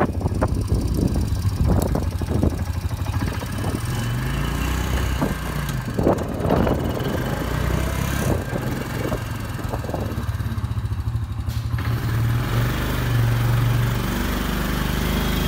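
Four-wheeler (ATV) engine running as it is driven, with scattered knocks and rattles. In the last few seconds the engine works harder as the ATV climbs onto a homemade pipe cattle-guard ramp.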